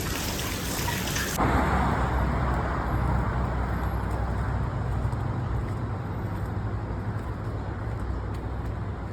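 Steady outdoor road-traffic noise, a low rumble of passing vehicles under a general hiss. About a second and a half in, the sound changes abruptly from a brighter hiss to the deeper rumble.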